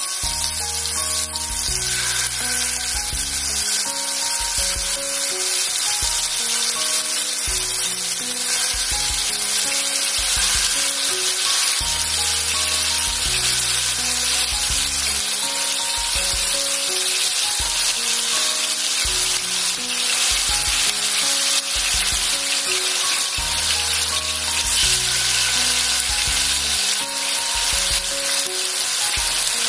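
Marinated chicken tikka pieces shallow-frying in hot oil in an open pan: a steady sizzle that runs on as more pieces are laid into the oil. Soft background music with held low notes plays underneath.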